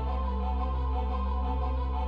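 Soft instrumental background music: sustained pads and a held low note, with a flute-like melody.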